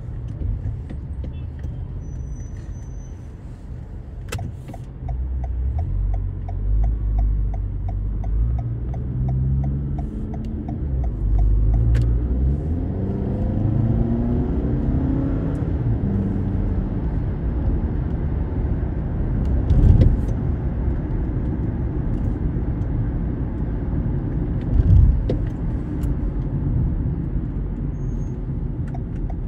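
Car driving on a road: steady engine and tyre rumble, with the engine's pitch rising as the car speeds up partway through. A run of even, light ticks, a few per second, is heard for several seconds before that.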